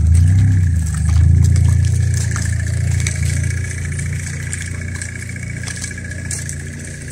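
A low engine rumble, loudest about a second in and then easing off, with a faint steady high whine.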